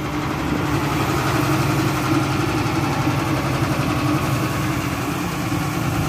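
Road roller's diesel engine running steadily as it works on freshly laid asphalt, an even engine drone.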